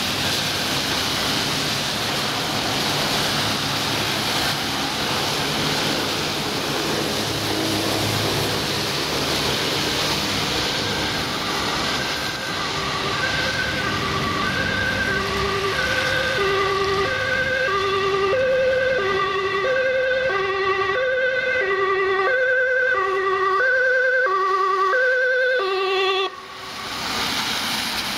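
Dutch ambulance two-tone siren, high and low tones alternating, coming in about halfway over traffic noise and growing louder as the ambulance nears. It cuts off suddenly near the end.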